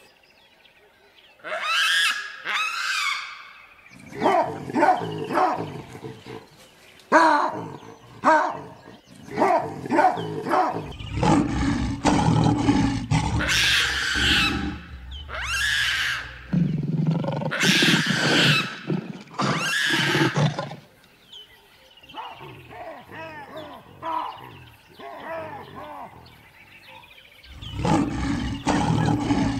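Lion growls and roars in a string of separate calls with short gaps. Several deep, heavy ones come in the middle, fainter sounds follow, and a loud call comes near the end.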